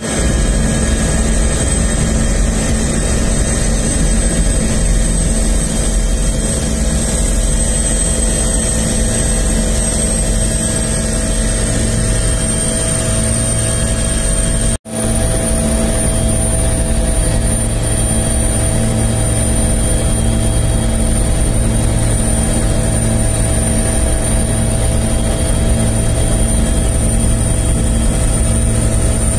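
Helicopter turbine engine and rotor running steadily, heard close up from aboard, with a constant high turbine whine over a low rotor drone. The sound cuts out for an instant about halfway through, then carries on.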